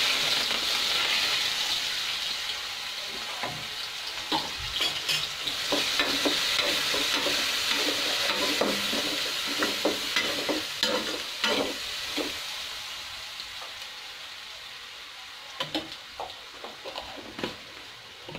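Chopped onion and curry leaves sizzling in hot oil in a non-stick kadai, with a spatula scraping and knocking against the pan as they are stirred. The sizzle is loudest as the onion goes in and eases off gradually as it sautés.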